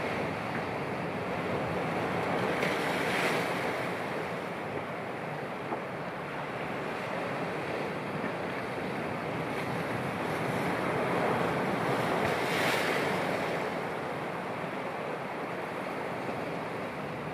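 Sea waves washing and surging, with wind buffeting the microphone. The surf swells up twice, about three seconds in and again about twelve seconds in.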